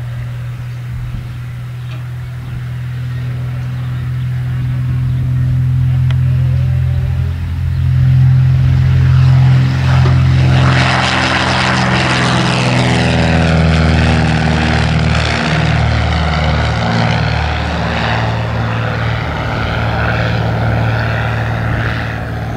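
1957 Cessna 172's six-cylinder Continental O-300 engine and propeller at takeoff power, a steady drone that grows louder as the plane rolls and lifts off. About halfway through it passes close, the propeller noise swells and the engine's pitch slides down, and then it drones on as the plane climbs away.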